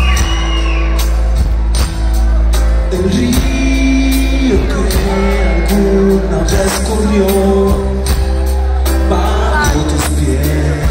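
A live band playing through a PA, heard from the audience: a male lead vocal over drums and a heavy bass line, with steady, regular drum hits.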